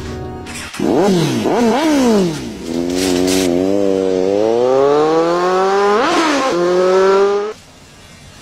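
Sport motorcycle engine blipped sharply two or three times, then pulling away with its pitch climbing steadily and a quick rev spike about six seconds in. It cuts off suddenly near the end.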